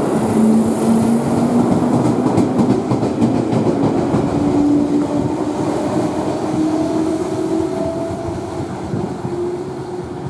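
JR West 221 series electric train pulling away from the platform. Its motor whine rises steadily in pitch as it accelerates, over the rumble of the wheels, which clack quickly over the rail joints a few seconds in. It grows fainter as the train moves off.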